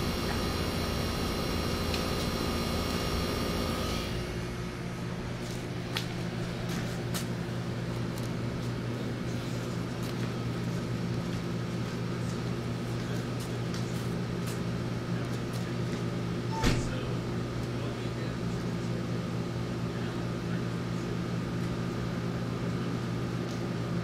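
Room air conditioners running: a steady fan-and-compressor hum with a low, even drone. The hum changes in character about four seconds in. A few faint clicks and one sharper knock come about two-thirds of the way through.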